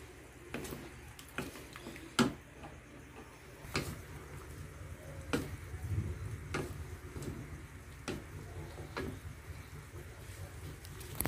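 Wooden spatula stirring broccoli and cauliflower in sauce in a metal wok, knocking and scraping against the pan about once a second at an irregular pace.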